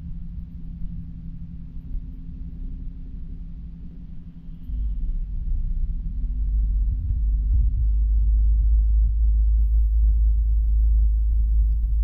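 City bus idling, its engine a steady low hum heard from inside the cabin. About halfway through, a deep rumble grows much louder and stays.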